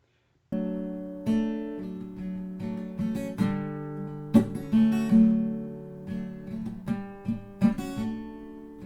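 Music: strummed acoustic guitar chords ringing out, starting about half a second in after a moment of silence.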